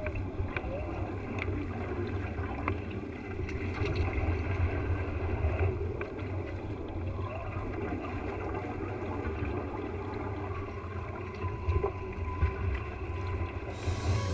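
Wind and water noise aboard a foiling trimaran sailing in light wind: a steady low rumble of wind on the camera's microphone, with the hiss of wind in the rigging wires and water along the hull, and a few faint ticks.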